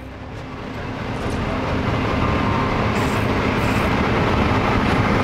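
Moving passenger train heard from inside the carriage: a steady low rumble and running noise that fades up over the first couple of seconds, then holds steady.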